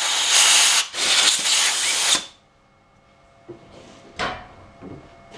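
A power tool running loud and steady while drilling out a broken stud hole in an aluminium oil housing, with a brief dip about a second in. It stops suddenly about two seconds in, followed by a few light metal clicks and knocks.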